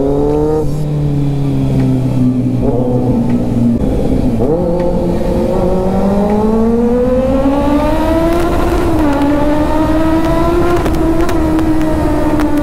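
Kawasaki Z900's inline-four engine with a loud aftermarket slip-on exhaust can, heard from the rider's seat while riding through the gears. The revs drop at an upshift about half a second in and again about four and a half seconds in, then climb and hold steady near the end.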